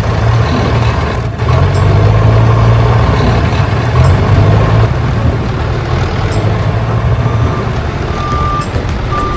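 Small motor running with a steady low hum and a rattly noise over it, and two short high beeps near the end.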